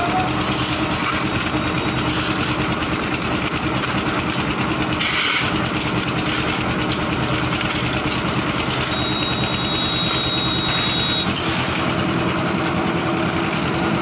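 Portable concrete mixer with bucket hoist (dhalai machine) running steadily with a continuous engine hum while it mixes and lifts concrete to the roof. A short scraping burst comes about five seconds in, and a high steady squeal lasts about two seconds near the middle.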